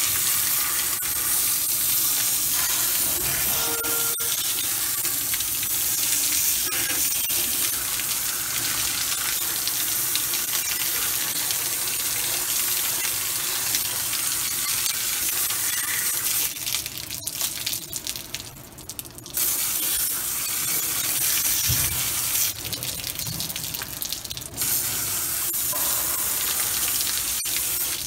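A pressurised jet of cleaning liquid from a handheld spray wand hissing and splashing into the open rear differential housing, with the run-off pouring down. The spray falters twice in the second half.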